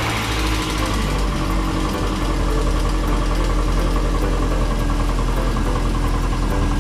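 VW Golf 8-valve four-cylinder engine idling steadily, with a light, even ticking over the engine note. The ticking is the lifter noise that replacing the oil pump did not cure.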